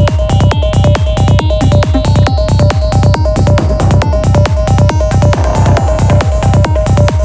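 Progressive trance music: a steady four-on-the-floor kick drum under a repeating synth pattern, with a faint rising sweep in the high end.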